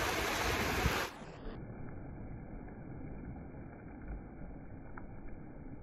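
Small waves washing up a sandy beach as a steady rush of water and foam. About a second in, the sound turns suddenly much quieter and duller, the rush going on as a muffled low rumble.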